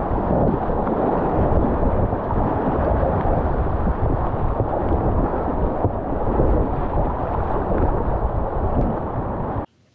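Continuous loud rush of whitewater river rapids picked up close on a kayaker's camera microphone, cutting off suddenly near the end.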